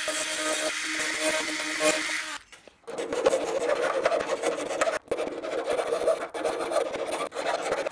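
A small handheld rotary tool runs steadily, grinding out a hole in a composite fuselage, and stops about two and a half seconds in. After a short pause a round file rasps back and forth in the hole, widening it for the wing mounting tube.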